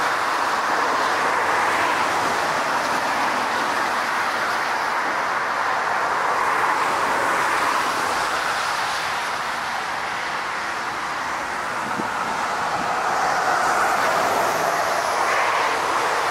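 Airbus A380's four jet engines on landing approach: a steady rushing noise that slowly swells and eases.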